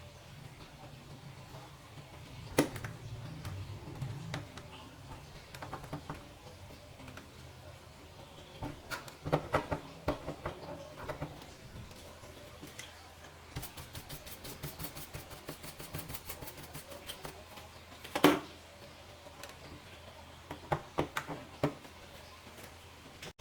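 Scattered clicks and taps of small hard objects being handled, with a run of quick, even clicks, about six a second, for a few seconds in the middle, and one louder knock a little after that.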